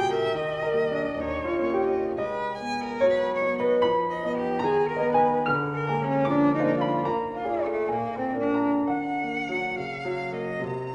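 Violin and piano playing a classical sonata: a bowed violin melody with vibrato over piano accompaniment.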